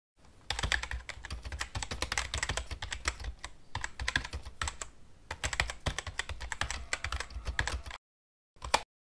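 Computer keyboard typing: a fast, uneven run of keystrokes that stops about a second before the end, followed by one short click near the end.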